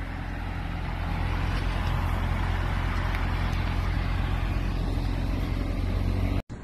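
C8 Corvette Stingray's mid-mounted 6.2-litre V8 running at low speed as the car rolls past, a steady low exhaust note that swells slightly about a second in. The sound cuts off abruptly near the end.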